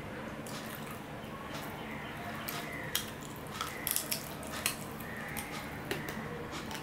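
Wet chewing and lip-smacking of a person eating a handful of rice and curry. Short sharp smacking clicks come in a quick cluster around the middle, over a steady background hum.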